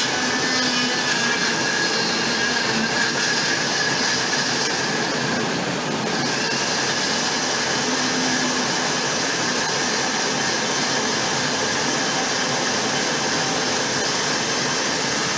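Electric kitchen blender running steadily, grinding chillies and onions with a little water into a paste for sambal; the sound shifts slightly about six seconds in.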